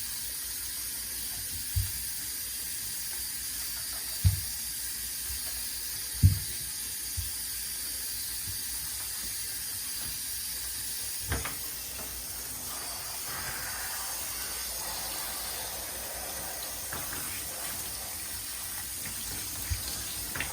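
Running water hissing steadily, with several dull thumps.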